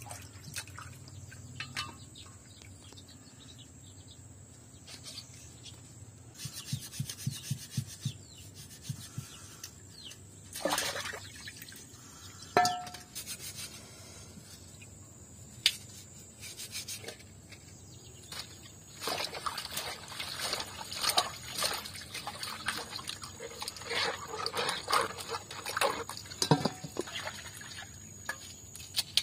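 Hands handling and rinsing fresh vegetables: rustling, light knocks against a metal colander and bowl, and water splashing, busiest in the second half. A brief chirp sounds near the middle.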